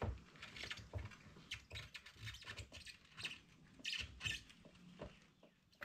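Rubber spark plug cap and ignition wire on a 1975 Honda Goldwing being twisted and pulled out of their rubber fitting: faint rubbing with a handful of short squeaks and small clicks.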